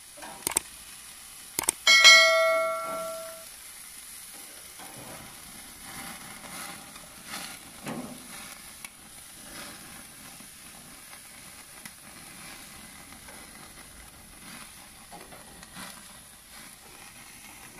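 A single bell-like ding about two seconds in that fades over a second or so, then steady faint sizzling with scattered crackles as the chicken cooks.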